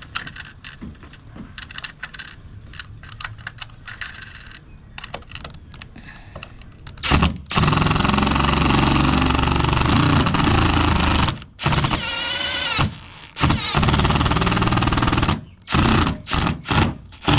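Light clicks of hand tools on hardware, then a power driver running hard in several trigger pulls: one of about four seconds, a shorter run, and a few quick bursts near the end, driving the trolling motor mount's bolts tight.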